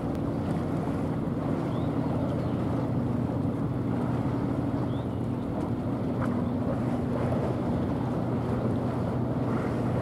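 Steady low drone of a small coastal cargo ship's diesel engine under way, over a wash of wind on the microphone and moving water.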